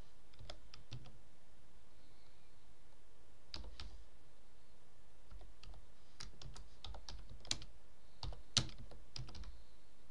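Typing on a computer keyboard: irregular short runs of keystrokes with pauses between them.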